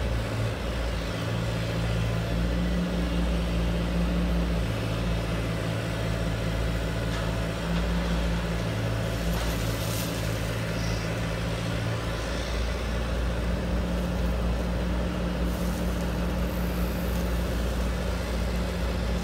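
Large radio-controlled Caterpillar excavator model running as it digs: a steady low hum from its drive and hydraulics that shifts as the arm and bucket work, changing about twelve seconds in.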